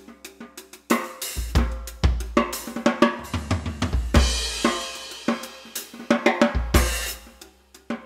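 Music led by a drum kit: quick snare and hi-hat strokes with kick-drum thumps, and a cymbal wash about four seconds in, over held steady tones.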